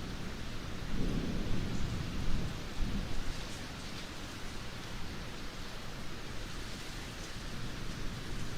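Steady rain falling, with a low rumble of distant thunder swelling from about one to three seconds in.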